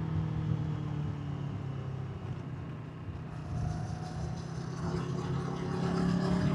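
Kawasaki Versys 650 parallel-twin engine heard from the rider's position: the revs fall away for the first few seconds as the bike slows, then climb again as the throttle opens.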